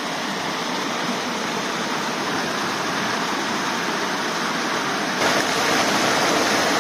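Water rushing steadily from a supply inlet into a fish-rearing pond, getting louder about five seconds in.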